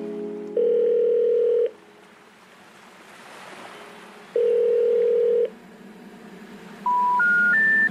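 Telephone signal tones laid into the soundtrack: two steady ringing tones about a second long, a few seconds apart, with faint hiss between. Near the end come three short beeps stepping up in pitch, the special information tone that comes before a 'number not in service' recording.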